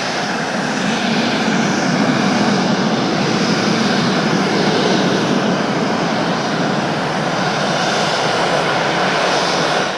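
Dassault Falcon 6X twin-turbofan business jet at takeoff, its engines giving a steady, rushing jet roar.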